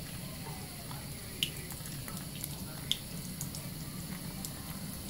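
Two wet bars of soap rubbed together between lathered hands under a running tap: a wet, squelching lather with many small clicks over the steady stream of water, and two sharper clicks about a second and a half and three seconds in.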